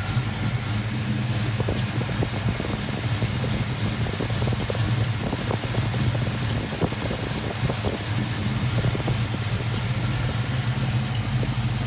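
1980 Ford Mustang's engine idling steadily with its newly fitted clutch fan turning.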